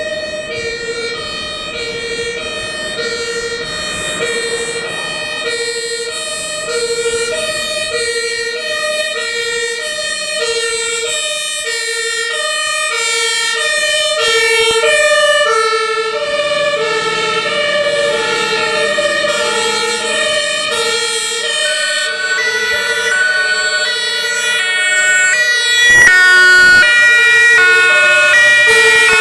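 German fire engines on an emergency run, an LF 20 pumper, a command car and a turntable ladder, sounding two-tone sirens. The alternating high-low tones of more than one siren overlap, with truck engines under them. A louder, higher siren comes in about three quarters of the way through.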